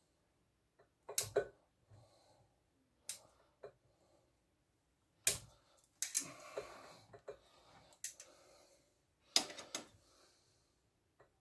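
Sharp clicks and knocks of bonsai pruning on a small elm: steel concave cutters and shears clicking and snipping twigs, and the ceramic pot knocking as it is turned and set back on its stand. A handful of separate strikes, with faint rustling between them.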